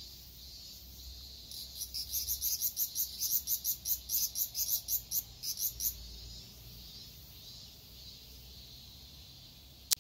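Cicadas singing in summer: one calls in a fast pulsing run of about four or five pulses a second for several seconds, then fades back into a steady high buzz from others. A single sharp click near the end.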